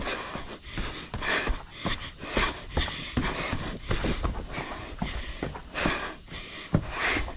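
Running footsteps on a rocky, sandy trail, about two to three strides a second, with the runner's hard breathing between them.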